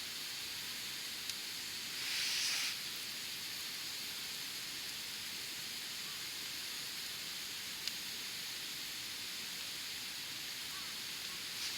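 Open wood campfire burning with a steady hiss, two sharp pops about a second and about eight seconds in, and a louder hiss lasting under a second, about two seconds in.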